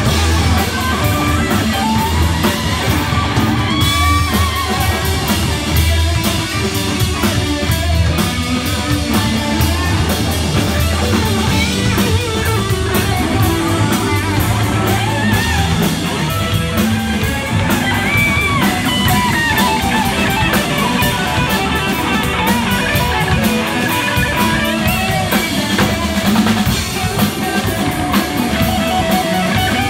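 Live rock band playing at full volume: electric guitars over bass and a drum kit, with a lead guitar line bending notes.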